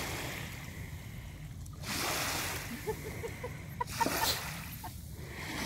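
Shallow water splashing and lapping as a small dog swims after a stick, a rushing sound that swells about two seconds in and again about four seconds in.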